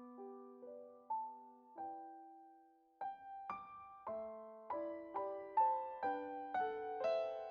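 Gentle solo piano background music: a few slow, sparse notes, then a steadier run of notes from about three seconds in.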